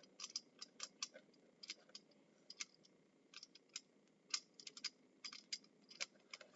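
Faint, irregular clicks and clacks of plastic LEGO Technic pieces being handled, a couple of dozen sharp ticks at uneven spacing.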